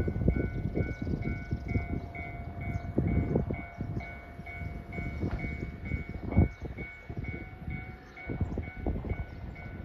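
Electronic railway warning bell ringing in an even pulse about twice a second, with a steady higher tone beneath it, under irregular low rumbling.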